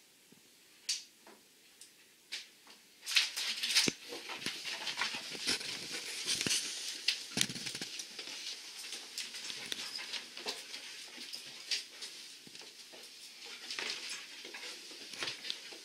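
A dog moving about on a hard wood floor, its claws clicking and pattering, with rustling movement. There are a few sharp clicks at first, then the clicking and rustling get busier and louder from about three seconds in.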